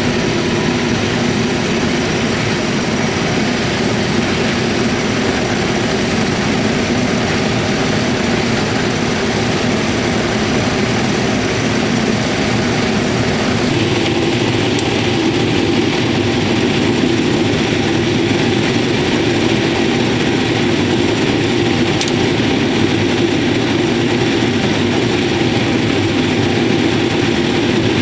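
Corn-shelling machinery running steadily: a loud, continuous mechanical drone of engine and works, which changes tone slightly about halfway through.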